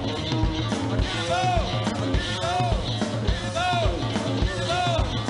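One-string diddley bow played with a slide, its note sliding up and back down in repeated arcs, over a steady driving drum beat.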